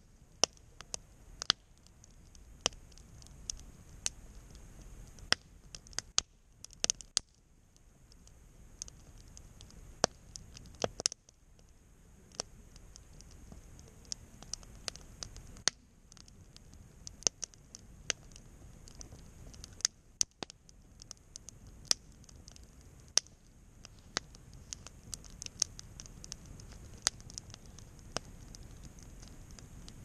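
Wood campfire crackling: irregular sharp pops and snaps, several a second at times, a few much louder than the rest, as the burning sticks throw off sparks.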